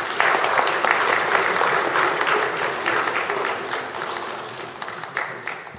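Audience applauding, loudest in the first few seconds and dying away toward the end.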